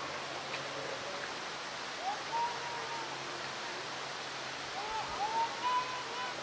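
Steady rushing outdoor background noise, with a few short rising calls about two seconds in and again near the end.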